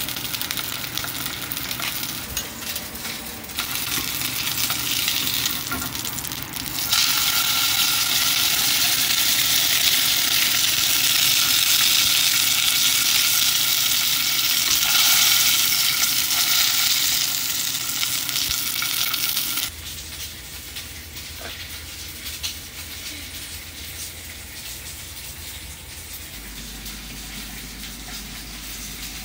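A5 Wagyu steak sizzling as it fries in oil in a non-stick frying pan, the sizzle growing louder about a quarter of the way in. About two-thirds of the way through the sizzle cuts off suddenly, leaving a quieter steady low hum.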